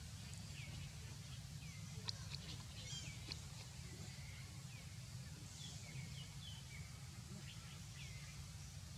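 Faint outdoor ambience: scattered short, high chirps and a few clicks over a steady low rumble.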